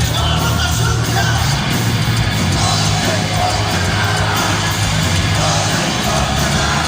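Live heavy metal band playing loud, with distorted electric guitars, bass and drums, and voices shouting along.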